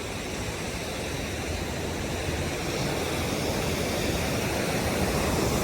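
Looking Glass Falls rushing: a steady roar of falling water that grows slowly louder.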